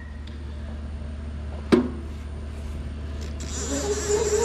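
Valve seat cutting machine at a Cummins cylinder head: the cutter's squeal cuts off right at the start, leaving a low steady hum, with one sharp metallic clink a little under halfway through.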